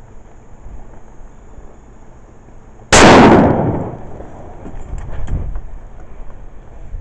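A single hunting-rifle shot about three seconds in, very loud, its report rolling away and fading over about a second.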